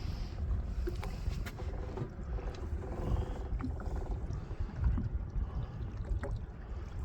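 Low rumble of wind and water around a small fishing boat, with scattered light knocks and clicks.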